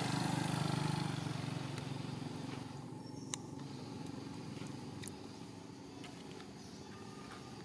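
A motor vehicle's engine running as it passes, fading gradually as it moves away over the first few seconds. Two faint clicks come midway.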